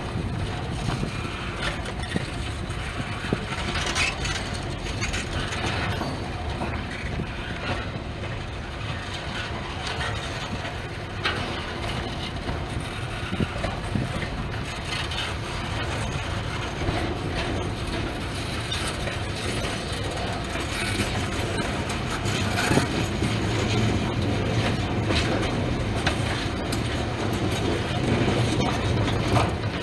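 Freight train cars rolling past, first double-stack container well cars and then boxcars: a steady rumble of steel wheels on rail with occasional sharp clanks and knocks.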